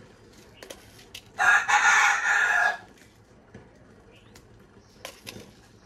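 A rooster crows once, loud, lasting about a second and a half, starting about a second and a half in. A few light clicks and taps come before and after it.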